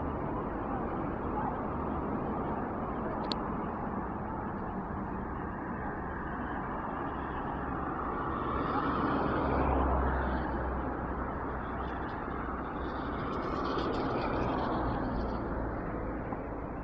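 Steady rushing outdoor background noise that swells about halfway through and again later, with faint distant shouting.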